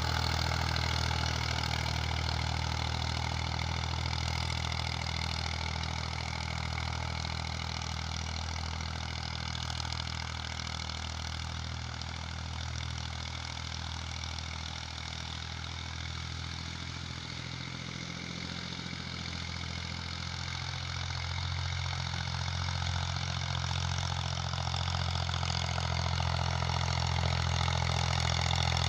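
Massey Ferguson 240 tractor's three-cylinder diesel engine running steadily under load while pulling an 18-disc harrow. It grows quieter through the middle and louder again near the end.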